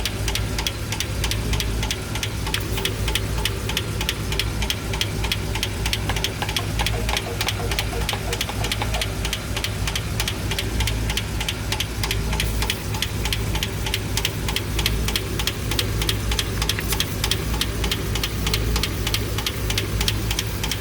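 A V engine with a central camshaft, pushrods and rocker arms running with one valve cover off, its exposed valve train making a fast, even ticking over a steady low hum. This is the valve-train noise that the owner is chasing to the hydraulic lifters.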